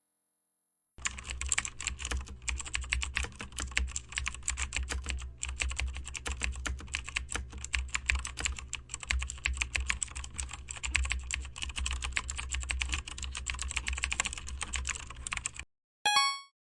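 Fast typing on a computer keyboard: a dense stream of key clicks, starting about a second in and stopping suddenly about a second before the end. A brief pitched blip follows just before the end.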